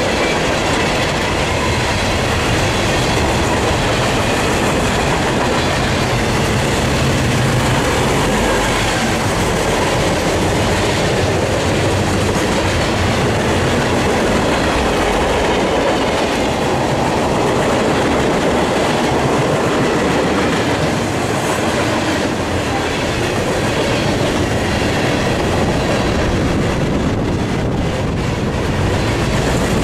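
Freight train cars (boxcars, tank cars and a covered hopper) rolling past, a steady loud noise of steel wheels running on the rails.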